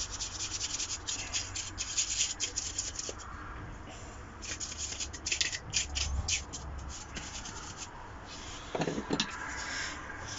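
Quick, irregular rubbing strokes as dust is wiped off the plastic parts of an opened fan heater, coming in bursts with a short lull about four seconds in.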